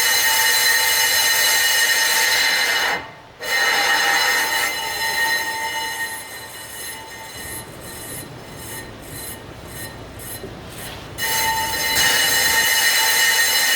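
Steady high-pitched metallic squeal at a 2018 BMW 530i's brake disc, the brake noise that began after new pads were fitted. It drops out for a moment about three seconds in, runs weaker and uneven through the middle, and comes back at full strength near the end.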